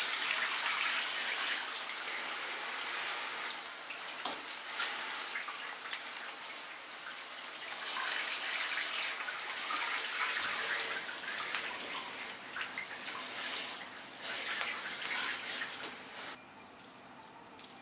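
Steady hiss and patter of falling water spraying and splashing, which cuts off suddenly near the end, leaving only a faint hiss.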